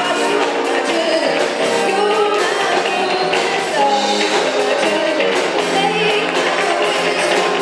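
Live band playing a pop song with a singer, steady throughout.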